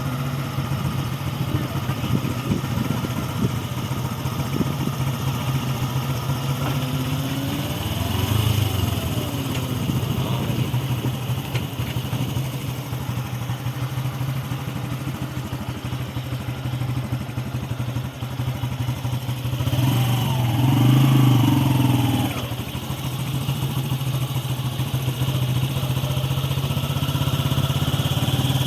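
Motorcycle engine running steadily while riding, rising twice in pitch and loudness, about a third of the way in and again about two-thirds in.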